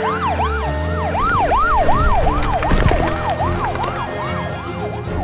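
Cartoon emergency-vehicle siren wailing in quick rising-and-falling sweeps, about three a second, over background music. There is a low thud about three seconds in.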